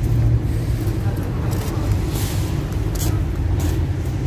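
Steady low engine rumble with a background haze and a few faint clicks.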